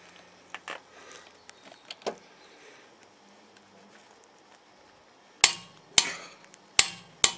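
Click-type torque wrench set to 180 newton metres, tightening a locking wheel bolt: a few faint ticks in the first two seconds, then four sharp clicks over the last two seconds as the wrench breaks over at its set torque.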